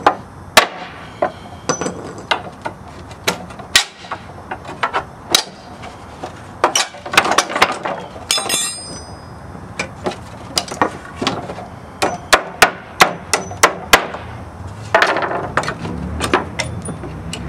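Hammer striking a wooden pallet and pry bar: a string of sharp, irregular blows, some in quick runs, knocking the pallet boards loose and driving out nails. A brief metallic ringing comes about halfway through, and a longer scraping sound comes near the end.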